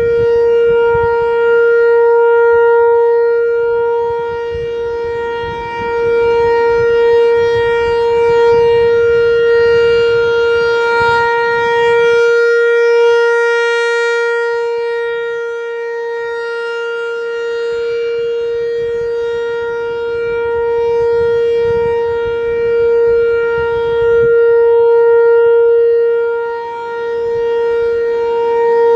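American Signal T-128 rotating outdoor warning siren sounding a steady single-tone alert during its monthly test. It holds one unwavering pitch and swells and fades in loudness as the horn turns.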